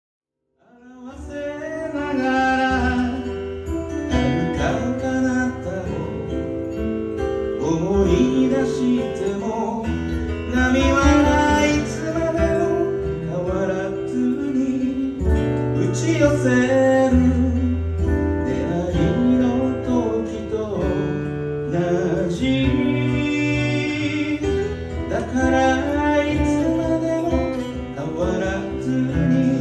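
Two acoustic guitars playing together, coming in about a second in; the right-hand guitar is an Iris played through a Henriksen amp.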